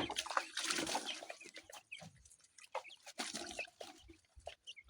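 Young chicks cheeping in short high peeps while they feed on chick mash, with scattered rustles and short clicks around them.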